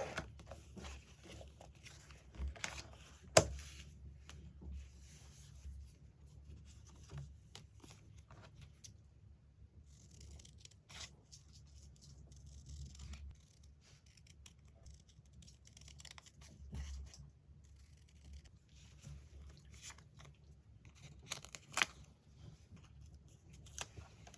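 Magazine paper being handled and torn, with soft rustling and scattered sharp clicks and snips, the loudest about three and a half seconds in.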